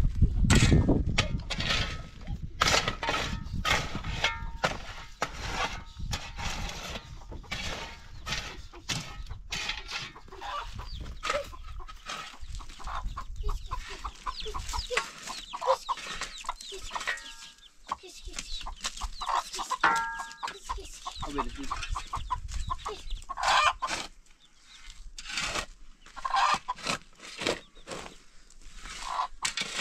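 Chickens clucking, with many short calls throughout. A loud low rumble sits under the first second or two.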